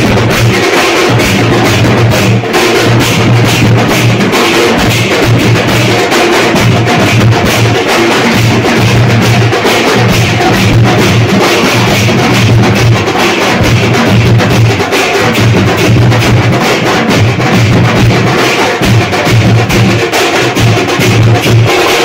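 Loud dance music driven by heavy, fast drumming, with a pulsing bass.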